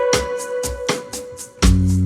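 Background music: an instrumental passage with a steady beat and held keyboard chords, and a deep bass note comes in near the end.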